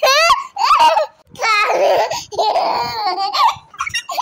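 A two-year-old girl laughing and squealing in several loud bursts, her voice sliding up and down in pitch.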